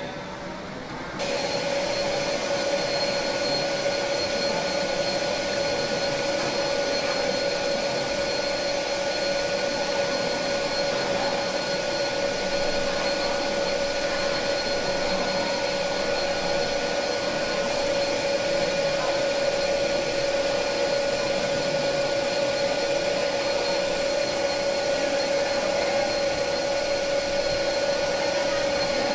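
Metal lathe starting up about a second in, then running steadily: motor and gearbox noise with a steady whine over it.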